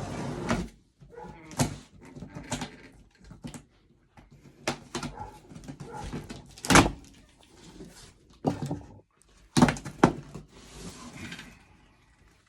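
A cardboard shipping box being opened and its packing handled: irregular rustling and scraping, broken by several sharp rips and knocks, the loudest about seven seconds in and a cluster near the ten-second mark.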